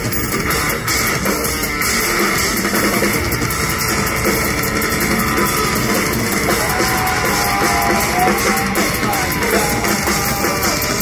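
A live rock band playing a loud, heavy metal song, with drum kit and distorted electric guitar, heard from within the crowd. Wavering guitar notes stand out from about halfway through.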